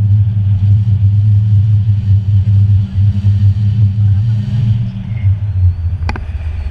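Wind buffeting the microphone of a selfie-stick camera during a tandem paraglider flight: a loud, uneven low rumble that eases off near the end, with a single sharp click shortly before the end.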